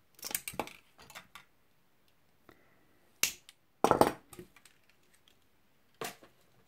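Sharp clicks and snaps of silver-plated copper wire being handled and cut with a hand tool, in several short clusters, loudest about four seconds in.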